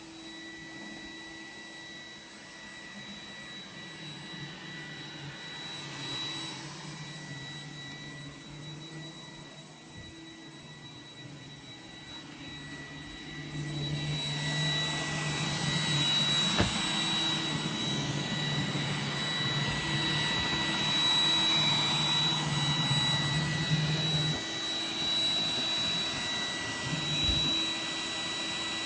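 iRobot Roomba 980 robot vacuum running, a steady high whine over a low motor hum, growing louder about halfway through. There is a brief knock a little past the middle.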